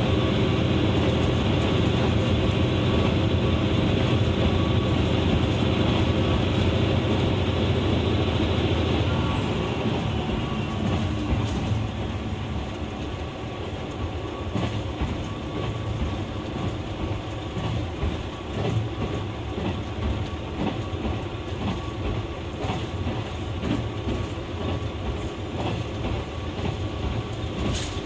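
KiHa 120 diesel railcar running on the line, its engine droning steadily under power. About ten seconds in the engine drops back and the car coasts, so the drone gives way to a quieter rumble with wheels clicking over the rail joints.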